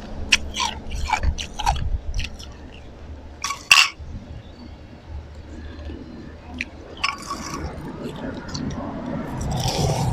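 Ice being bitten and crunched between the teeth close to the microphone. A quick run of sharp cracks comes in the first two seconds and one loud crunch near four seconds in. After that come quieter chewing with a few scattered cracks and a louder stretch of chewing near the end.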